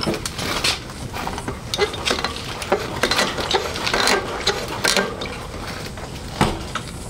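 Irregular metallic clicks, knocks and rattles of the motorcycle's front end being handled, with a sharper knock near the end.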